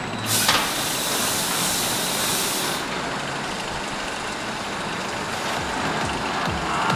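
Pressurised smoke-jet effect blasting: a sudden loud hiss that starts just after the start and cuts off about two and a half seconds later.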